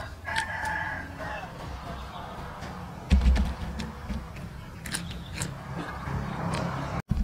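A rooster crows in the first second or so, over close chewing and crunching of crispy fried rat with scattered sharp clicks. A low thump about three seconds in is the loudest sound.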